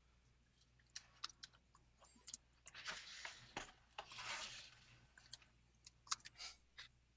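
Faint, irregular clicking of a computer keyboard, with a few soft rustles in between, on an otherwise near-silent microphone.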